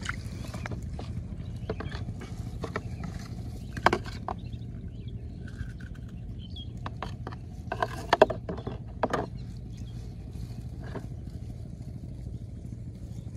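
Close handling sounds of hands working a fishing hook, bait and a small plastic bottle: scattered clicks, crinkles and rustles, with sharper knocks about four seconds in and a cluster around eight to nine seconds, over a steady low rumble.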